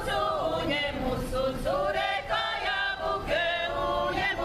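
A folk choir of women's and men's voices singing together in several sung phrases.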